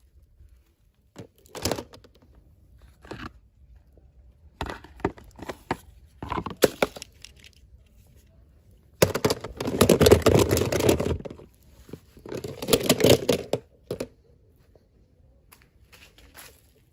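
Packaging handled in short rustling bursts, then torn and crinkled in two longer, louder stretches about nine and twelve seconds in.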